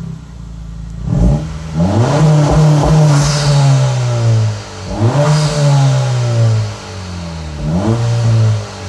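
2025 Honda Civic Si's 1.5-litre turbocharged four-cylinder through a Megan Racing N1 aftermarket exhaust, revving three times. Each time the pitch climbs sharply, then falls away slowly.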